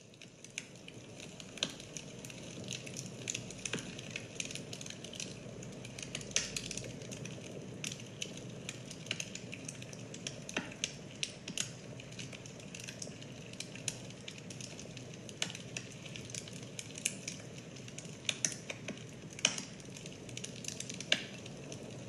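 Campfire crackling: a steady hiss with irregular sharp pops and snaps, fading in over the first second or two.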